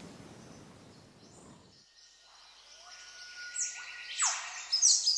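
Birds calling: a run of quick, sharply falling chirps starts about two and a half seconds in and comes faster near the end. A thin steady whistle sounds beneath the first of them.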